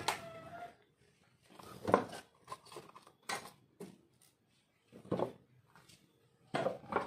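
The tail of a rooster's crow, then about five separate sharp knocks and clunks of tools and objects being handled on a wooden workbench, the loudest about two seconds in.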